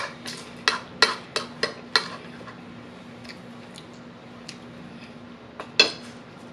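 Metal fork clinking and scraping against a plate: a quick run of sharp clicks in the first two seconds, then one more strong clink near the end.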